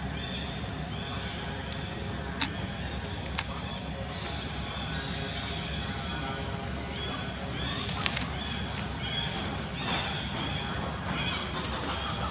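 Steady high-pitched drone of insects in the forest undergrowth, with a few sharp clicks or snaps scattered through it.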